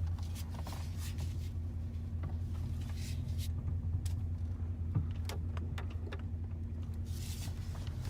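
2001 Dodge Ram 1500 idling, heard from inside the cab: a steady low hum with faint scattered ticks and creaks. It carries a faint power steering grind as the wheel is turned, which the owner puts down to low power steering fluid.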